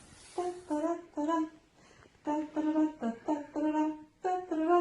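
A short tune of quick notes, each held at a steady pitch, humming- or horn-like in tone.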